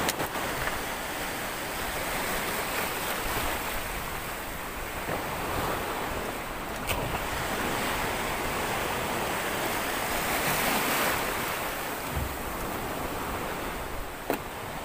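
Surf breaking and washing around a small boat, swelling and easing, with wind buffeting the microphone. A few sharp knocks stand out, one about seven seconds in and one near the end.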